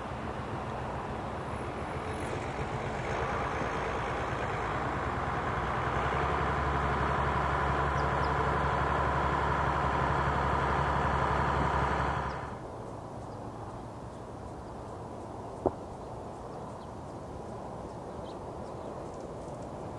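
A motor vehicle's engine running steadily, growing louder, then cut off abruptly about twelve seconds in. After that, a quieter outdoor background with one sharp click.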